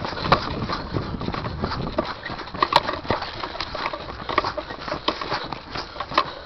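Footsteps crunching and rustling through dry brush and leaf litter, with irregular snaps and cracks.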